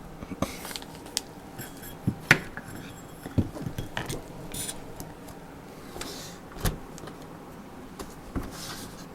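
Light, scattered clicks and taps with a few brief soft scuffs: hands working on a laptop's plastic screen bezel, pressing the small rubber screw covers back into place.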